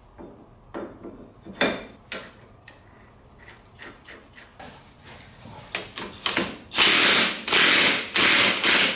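Light metallic clicks and knocks as the hub goes onto the ATV axle shaft. Then a power tool, likely an impact wrench, runs in four short loud bursts near the end, tightening the rear axle nut.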